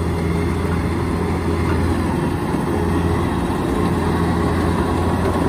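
Kubota DC-105X combine harvester's diesel engine and machinery running steadily at working speed while it harvests rice, a continuous low drone.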